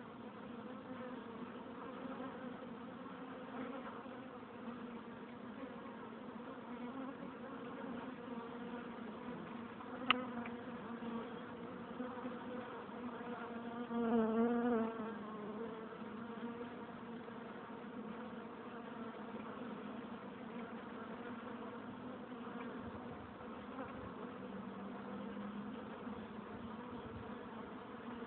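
Honeybees buzzing at a hive entrance, many wings together making a steady hum. About fourteen seconds in, one bee passes close and its buzz swells for about a second, wavering in pitch; a single sharp click comes about ten seconds in.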